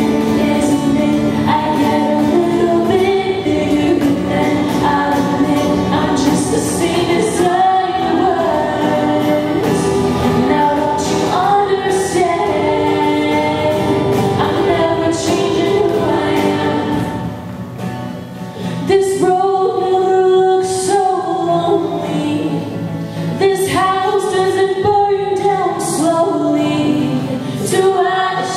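All-female a cappella group singing in harmony, a lead voice over sustained backing chords. The singing briefly drops in level about two thirds of the way through, then swells again.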